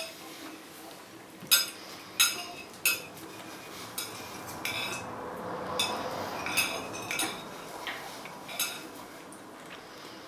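Metal table knife and fork clinking against a plate, about a dozen short, sharp clinks at uneven intervals.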